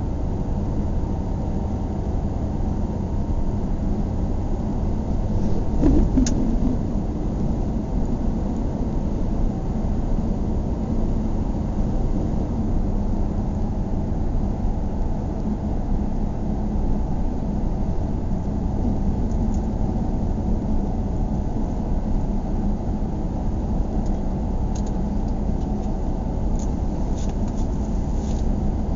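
Car driving along a town road: steady engine hum and road rumble, with a brief louder sound about six seconds in and a few faint clicks near the end.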